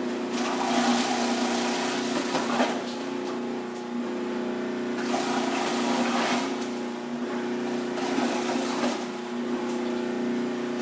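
Robot Coupe commercial food processor running with a steady motor hum while cabbage is pushed down its feed tube and shredded. It comes in three louder spells of shredding noise: shortly after the start, around five seconds in, and around eight seconds in.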